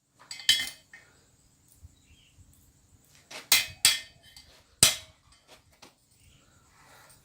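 Hammer striking a steel punch with sharp metallic blows, about four strikes at uneven intervals, driving a stuck plug out of a forged tong half.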